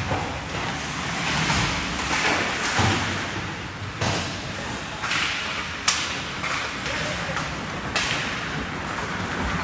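Ice hockey play on the rink: skates scraping the ice under a steady hiss, with sharp knocks of puck, sticks or bodies against the boards, plainest about four, six and eight seconds in, the one near six the loudest.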